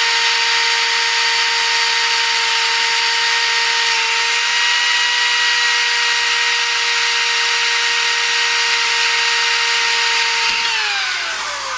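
Hand-held electric drill running at high speed with a very small bit, drilling a pilot hole into a spot weld in a steel pulley. It makes one steady, high motor whine, then winds down with falling pitch near the end as it is let off.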